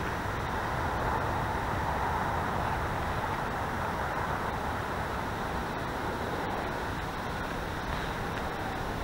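Steady outdoor noise with wind buffeting the microphone, low and unbroken.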